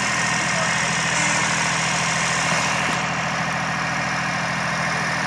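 Renault 56 tractor engine running steadily at low, even revs.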